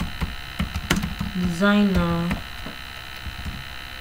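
Computer keyboard keys clicking as a word is typed, over a steady electrical mains hum in the recording. A brief drawn-out vocal sound comes about halfway through.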